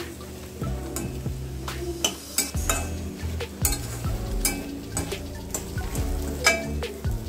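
A slotted metal spatula stirs and scrapes through curry leaves, shallots and dried chillies in a stainless steel kadai, clinking against the pan many times. Under it is a light sizzle of the leaves frying in oil. The crackling is the sign that the curry leaves are sautéed enough.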